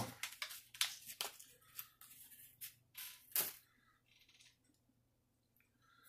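Plastic packaging and small plastic parts being handled just after the package is opened: a run of crinkles and clicks over about three and a half seconds, the loudest near the end, then near quiet.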